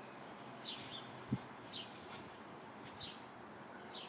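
A bird calling with a string of short, high chirps that slide down in pitch, irregularly spaced, over faint outdoor hiss. One brief low thump sounds about a second in.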